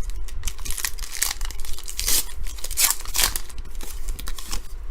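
A trading card pack's wrapper being torn open and crinkled: a run of sharp crackling rips, the loudest about two to three seconds in.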